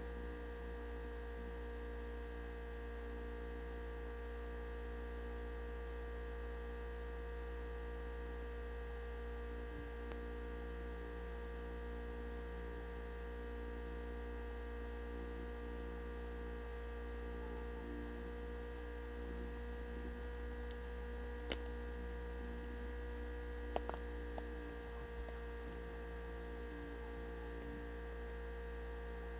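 Steady electrical-sounding hum made of several constant tones, with a few sharp clicks about three-quarters of the way through.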